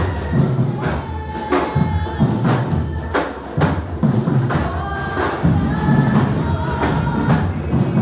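Music with a steady drum beat, about two strikes a second, and voices singing together.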